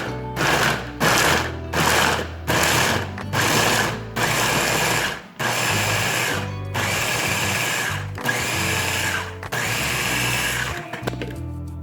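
A small electric kitchen appliance motor, first pulsed in about six short bursts, then run in five longer spells of about a second each, over background music.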